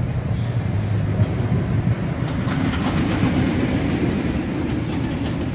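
Roller coaster train running on a Rocky Mountain Construction I-Box steel track, a steady rumble that swells a little midway.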